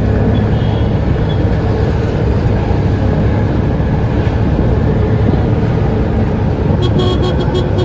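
Steady low rumble of a moving vehicle: engine and road noise heard from on board. About seven seconds in, a quick run of sharp clicks joins it.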